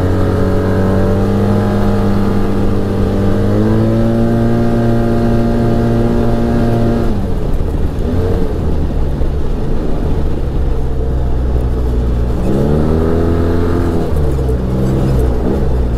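Arctic Cat Wildcat Trail 700 side-by-side's twin-cylinder engine under way. Its note climbs a few seconds in and holds, then drops away to a broad rumble about seven seconds in. It revs up and eases off twice more near the end.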